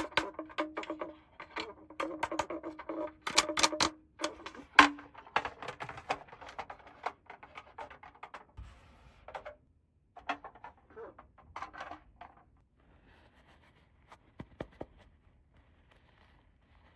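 Small plastic toy parts being handled: quick clicks, taps and rattles, with a pitched ringing tone under them for the first few seconds. The clicks thin out after about ten seconds and become sparse and faint.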